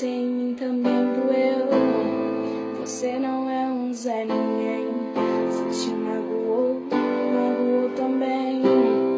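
Music: piano or electric keyboard chords with guitar, in an instrumental passage of a song.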